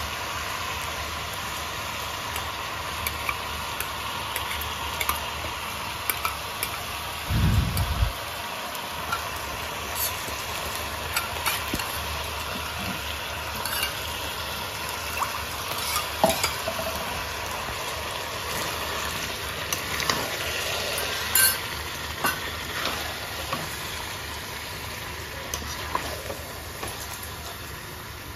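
Chicken and onions frying in a pan with a steady sizzle, while a spoon stirs and scrapes, clicking against the pan now and then. A single low thump comes about seven and a half seconds in.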